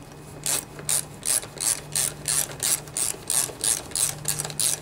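Hand socket-wrench ratchet clicking in quick back-and-forth strokes, about four a second, starting about half a second in, as mounting nuts are run down.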